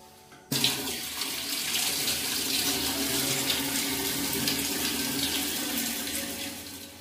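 Water running from a chrome wall-mounted kitchen sink mixer tap: it is turned on abruptly about half a second in, runs steadily, and fades near the end.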